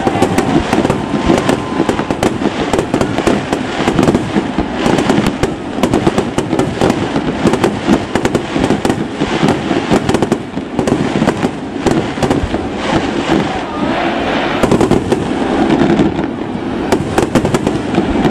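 A fireworks display going off nonstop: rapid, overlapping bangs and crackling with no break.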